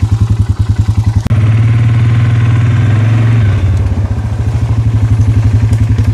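Polaris ATV engine running close by with a rapid pulsing beat; about a second in it revs up and holds steady, then drops back to the pulsing beat about halfway through.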